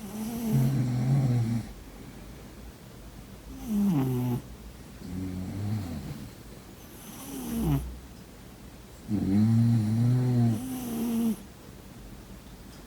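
Snoring: about five separate buzzing snores, some sliding down in pitch, with hissing breath between them; the longest, about two seconds, comes near the end.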